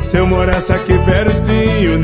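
Upbeat forró music: an accordion melody over a zabumba bass drum and a quick, steady triangle beat.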